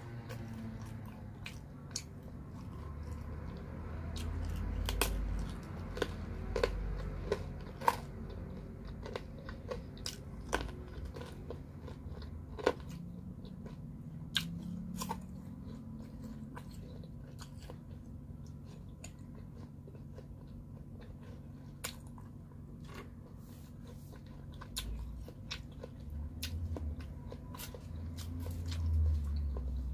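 Close-up eating sounds: crunchy bites and chewing of pizza crust and cubes of pear, with many sharp crunch clicks, thicker in the first half and sparser later.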